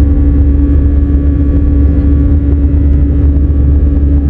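Cabin noise of an easyJet Airbus A320-family airliner climbing out just after take-off: the jet engines at climb thrust make a loud, steady drone with a held humming tone.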